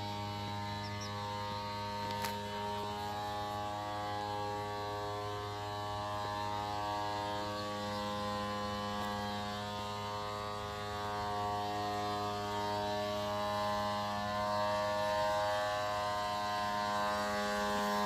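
Steady electrical buzzing hum, holding one pitch with many overtones throughout, with a faint click about two seconds in.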